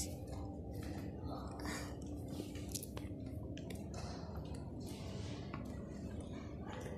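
Clothing-store interior ambience: a steady low hum with faint, indistinct voices and soft rustling.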